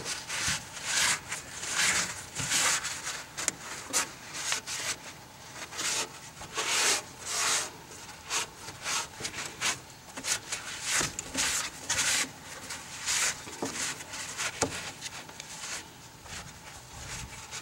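A towel rubbed back and forth over the riveted seam of an aluminum boat hull in repeated, irregular scrubbing strokes, wiping off the brake cleaner to leave the seam dry.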